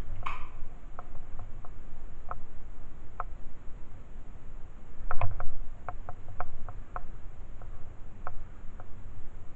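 Scattered sharp clicks and ticks over a low rumble, with a denser run of them about five to seven seconds in.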